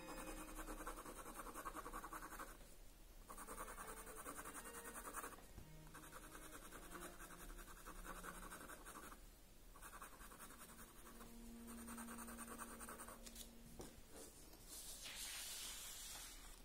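Graphite pencil scratching on drawing paper in quick back-and-forth shading strokes, faint, in runs of a few seconds with short pauses between them. Near the end comes a brief, brighter rustle of paper.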